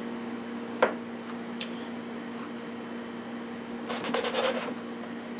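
Fluted plastic biscuit cutter pressed down through rolled pastry onto a floured wooden board: one sharp knock about a second in and a quick run of scraping clicks around four seconds in, over a steady low hum.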